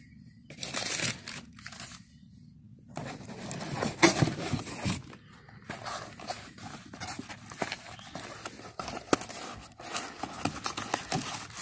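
Cardboard and paper packaging being handled and torn open by hand: irregular rustling, tearing and crinkling with scattered clicks and knocks, the loudest about four seconds in.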